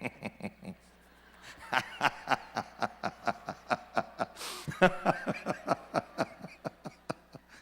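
Laughter in rapid, repeated bursts, with a sharp breath in the middle.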